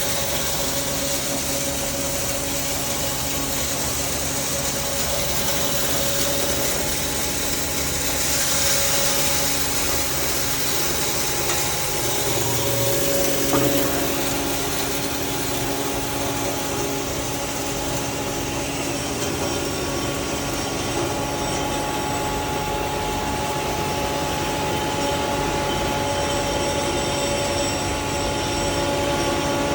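Maize-crushing hammer mill running, a steady loud mechanical noise with a constant hum through it. There is one brief knock about halfway through.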